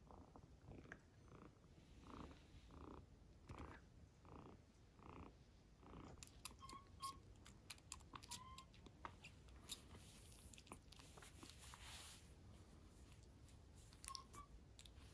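Very quiet: soft, evenly spaced pulses for the first few seconds. After that come faint wet clicks and smacks of a kitten sucking milk from a syringe, with a few tiny squeaks.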